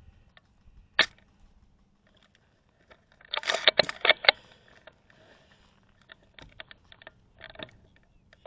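A single sharp shot from an airsoft rifle about a second in, then a quick run of metallic clicks and rattling around three and a half to four seconds in, and a few lighter clicks near the end.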